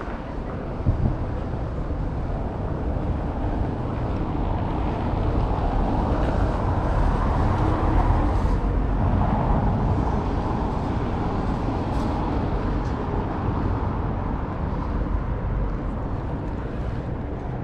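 Outdoor city ambience dominated by wind rumbling on an action camera's microphone. The noise swells louder through the middle and eases toward the end.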